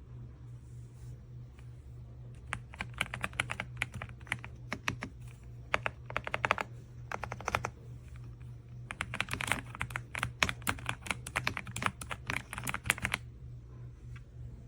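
Typing on an AULA S98 Pro mechanical keyboard: rapid key clacks in several runs with short pauses, starting a couple of seconds in and stopping near the end. A steady low hum runs underneath.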